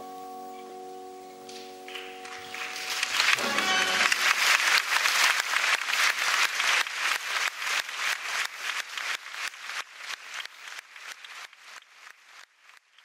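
An opera orchestra holds a closing chord while the audience breaks into applause. The applause swells within a couple of seconds, its claps falling into a fairly even beat, then fades away near the end.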